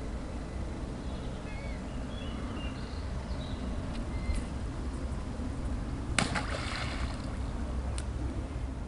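Wind rumbling on the microphone, with a few small birds chirping and a sharp click about six seconds in, followed by a brief rustle.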